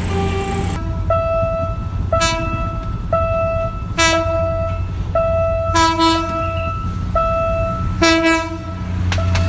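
Train horn sounding a string of about eight short blasts, roughly one a second, each a single steady high note, most likely from a PT-INKA diesel-hydraulic multiple unit. A steady low diesel rumble runs underneath.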